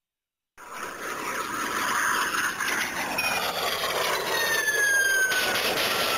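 Electronic sound effect from an Ultraseven hyper key toy, triggered by pressing its top button. It starts suddenly about half a second in as a loud rushing hiss, and several high whistling tones slide steadily downward through it.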